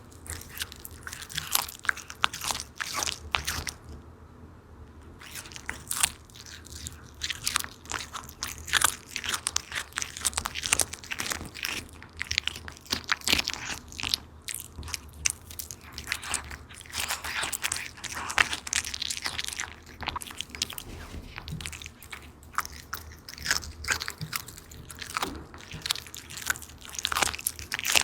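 A cat chewing and crunching on fish: a long run of irregular, quick crunches and bites, with a short pause about four seconds in.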